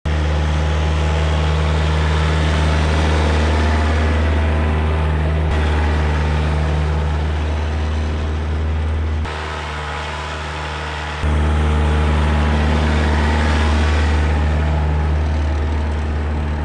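Portable sawmill's engine running steadily at a constant speed, with abrupt cuts between shots and a quieter stretch of about two seconds partway through.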